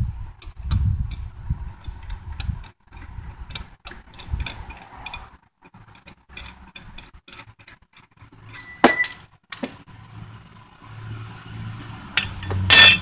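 Wrench and steel parts clicking and clinking as a lawnmower blade bolt is worked loose, with irregular light clicks and low thuds. A loud ringing metal clank comes about nine seconds in, and another just before the end.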